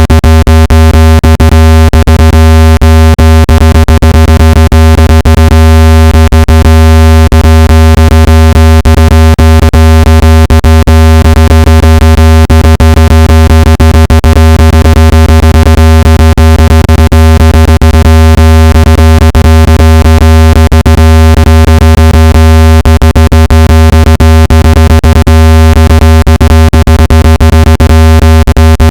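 Loud, steady, low-pitched electronic tone with a buzzy stack of overtones and frequent crackling clicks: a speaker-cleaning tone played at full volume to vibrate water and dust out of a phone speaker.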